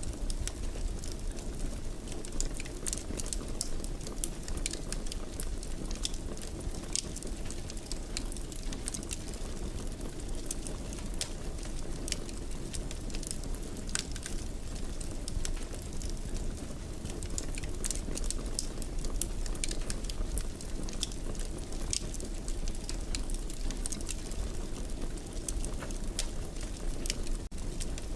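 Wood fire burning in a fireplace: a steady low rush with frequent, irregular sharp crackles and pops. The sound drops out for a moment near the end.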